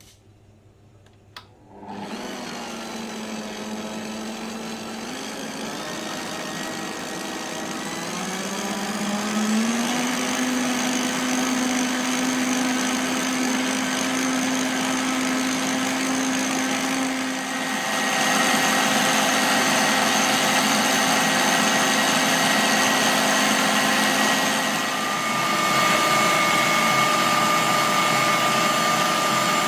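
Kenwood Kitchen Machine stand mixer whisking three eggs with its balloon whisk, starting up about two seconds in with a steady motor hum. The speed is stepped up a few times, each step a little louder and higher, as the eggs are beaten to a froth for a fatless sponge.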